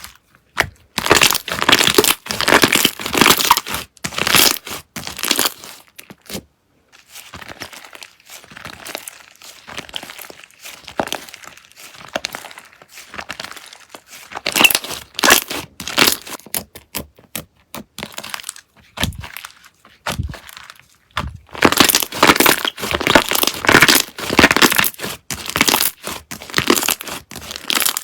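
Slime being pressed and squished by hand, giving dense crackly, crinkling clicks. The clicking comes in loud spells of a few seconds, with softer handling between.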